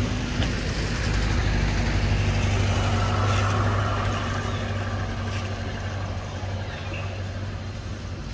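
An engine running steadily with a low hum, easing off slightly in the second half.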